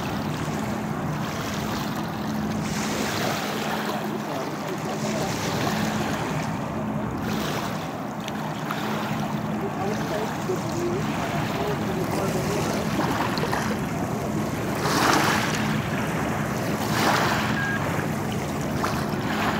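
Boat engines running with a steady low hum over water and wind noise, with two louder rushes of noise about three-quarters of the way through.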